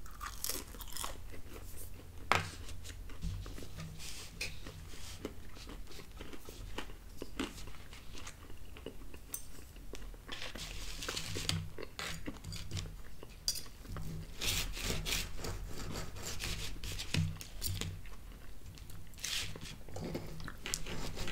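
A mouthful of thin-crust pizza being chewed with crunching, then a metal knife and fork cutting pizza on a paper plate. There are scattered clicks and short scraping sounds throughout.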